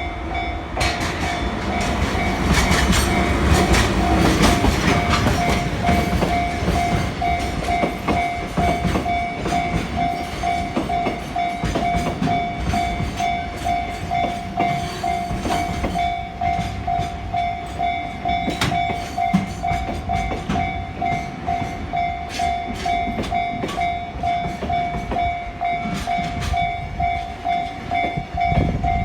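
Japanese level-crossing warning bell ringing in an even, repeating ding throughout, while a diesel-hauled freight train rolls over the crossing with its wheels clicking over the rail joints, the train loudest in the first several seconds.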